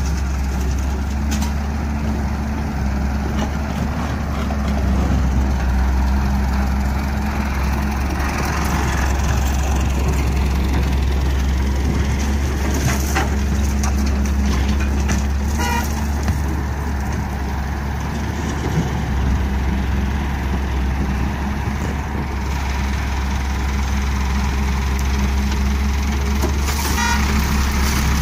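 Diesel engines of a Hyundai hydraulic excavator and a farm tractor running steadily at close range, a loud low drone, while the excavator digs and loads soil. Brief clatters come through a few times.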